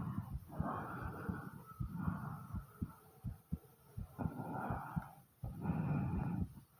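A person's heartbeat as a steady run of low thumps, with deep breaths heard as rushes of air about a second long, each followed by a quieter gap.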